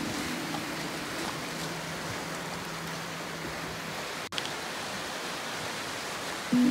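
Small sea waves washing onto a rocky shore, a steady hiss of surf. A short dropout just after halfway, and background music comes back in near the end.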